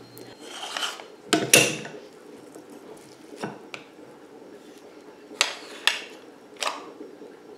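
Hand-held metal patty press being fitted together and pressed on a wooden board: a handful of short metal clinks and knocks as its parts meet and set down, the loudest about one and a half seconds in.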